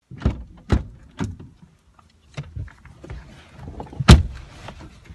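People getting into a car's front seats: a string of knocks and thumps from the car's doors and seats, with rustling between them and the loudest, heaviest thud about four seconds in.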